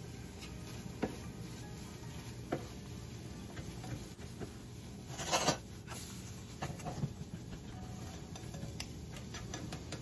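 A slotted spatula clicks and scrapes against a nonstick frying pan as an egg omelette is folded and turned, with scattered light taps. About five seconds in, the pan is tilted and there is a louder half-second rush of scraping noise.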